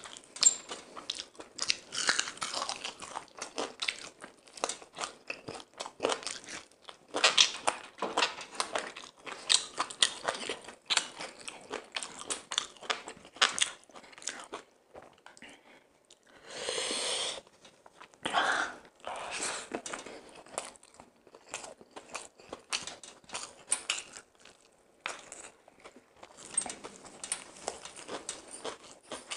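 Close-miked chewing and biting of fried chicken and biryani rice: wet mouth sounds and crunching in quick, irregular clicks. About halfway through comes one longer rushing noise lasting about a second.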